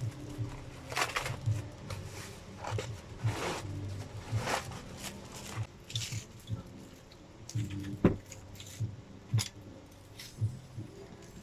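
Handling and opening the packaging of a ring light's tripod stand: irregular rustling and crinkling, with a couple of sharper knocks about eight and nine seconds in.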